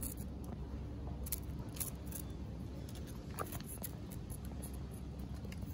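Quiet outdoor background: a steady low hum with a few faint, sharp clicks scattered through it, and a brief faint high sound about three and a half seconds in.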